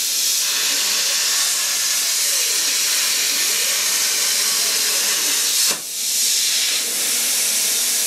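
CNC plasma cutter torch cutting steel plate: a loud, steady hiss, with a brief drop near six seconds.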